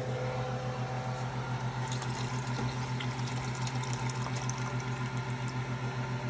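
Juice from a can of green beans poured into a pot of soup, splashing and trickling from about two seconds in until about five and a half seconds in. A steady low hum runs underneath throughout.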